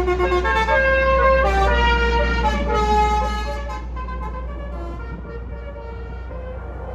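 Bus 'telolet basuri' musical horn playing a melody of held notes stepping up and down, fading about four seconds in, over a steady low rumble.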